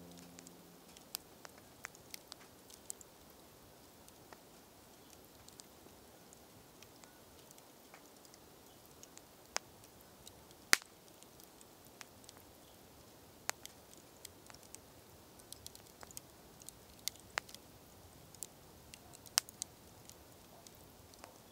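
Wood fire crackling: sparse, irregular pops and snaps over a quiet background, with one louder snap about eleven seconds in.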